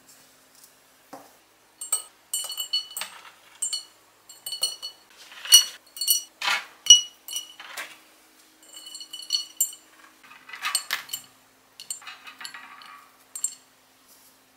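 Dried beet strips dropped a few at a time into a glass bottle: irregular clinks, each with a brief high ring from the glass. Near the end come lighter, rattly clicks as the dehydrator trays are handled.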